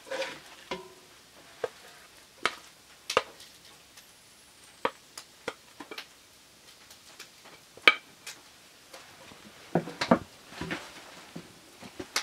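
Spatula scraping and knocking against a cast iron Dutch oven and a plate as an omelet is dished out: scattered sharp clicks and scrapes, with a denser run of clatter about ten seconds in.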